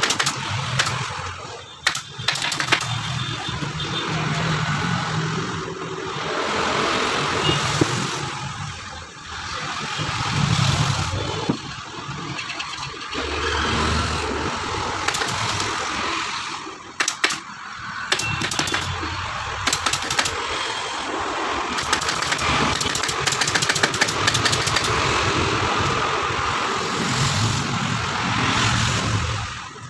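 Pneumatic staple gun shooting staples into sofa upholstery fabric: single sharp clacks at first, then quick runs of shots through the second half. Under it runs a steady engine drone with swells of passing motor traffic.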